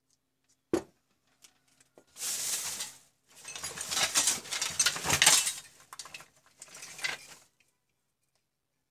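Handling noise of a small transformer and a metal alligator clip. A sharp click comes about a second in, then a few seconds of scraping, rattling and clinking as the transformer is clamped in the clip and set down on the bench.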